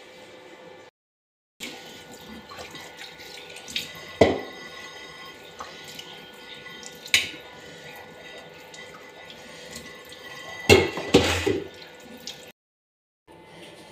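Tap water running into a stainless steel kitchen sink while dishes are washed by hand, with a few clinks of crockery and a louder clatter of dishes near the end. The sound drops out briefly twice.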